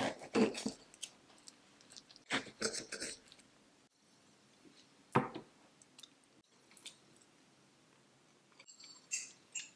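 A knife and fork cutting into a soft frosted cinnamon roll on a porcelain plate: a few short clicks and scrapes of the cutlery against the plate, with soft chewing as she eats.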